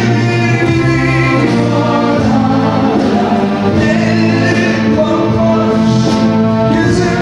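Live male vocalist singing through a microphone, backed by a symphony orchestra with sustained strings.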